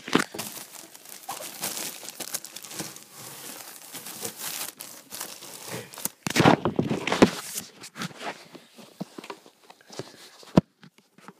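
Plastic wrapping crinkling and packaging rustling as a mini air hockey table is pulled out of its box, in irregular bursts with a louder stretch of handling about six and a half seconds in. A single sharp knock near the end.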